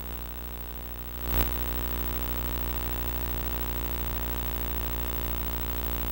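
Steady electrical hum and hiss, with a click about a second in after which it gets a little louder. No game or crowd sound is heard.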